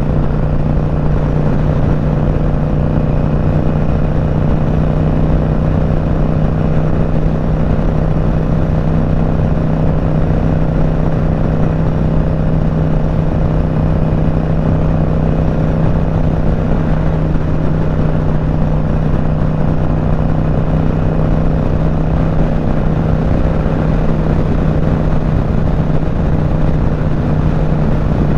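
Motorcycle engine running steadily at highway cruising speed, a constant low drone with steady wind and road noise over it.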